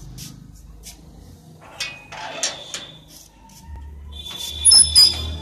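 A metal gate rattling and clicking, with a high squeak and a couple of louder knocks near the end.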